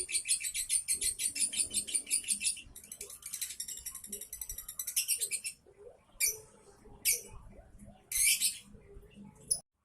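Lovebird giving a rapid stuttering run of high chirps in two long runs, then a few short separate bursts in the later part. This is the 'minor' call that lovebird keepers take as a sign the bird is nearing 'konslet', a state of heightened breeding excitement.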